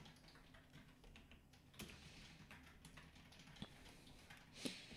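Faint computer keyboard typing: a few scattered key clicks, otherwise near silence.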